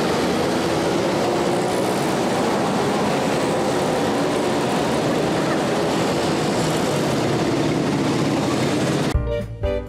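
A crowd of vintage two-stroke mopeds running together as the group rides past, a dense, steady engine buzz. About nine seconds in it cuts abruptly to music.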